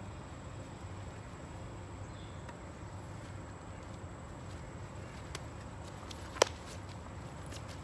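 Steady outdoor ambience with a faint hum of insects, broken by one sharp click about six and a half seconds in.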